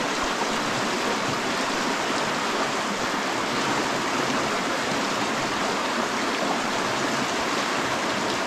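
A small rocky creek rushing steadily over stones through a shallow riffle.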